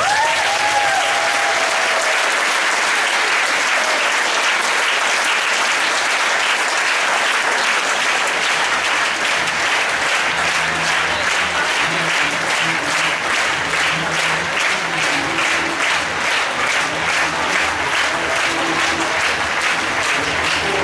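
Large arena crowd applauding, the clapping falling into a steady rhythm in unison about a third of the way in, with music playing faintly underneath.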